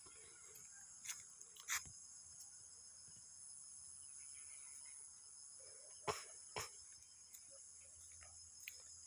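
Steady, high-pitched insect chorus, crickets by the sound of it. Four short knocks cut through it, two in the first two seconds and two around six seconds in.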